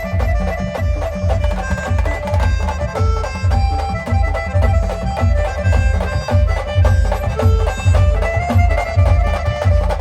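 A band playing a dance tune: a melody line over a strong, steady drum beat.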